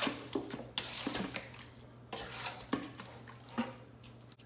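A metal spoon scrapes and clatters against a stainless steel mixing bowl in about four strokes as raw chicken pieces are tossed in a wet seasoning.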